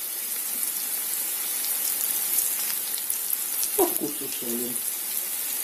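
Beef liver pieces and sliced onions sizzling steadily in a frying pan.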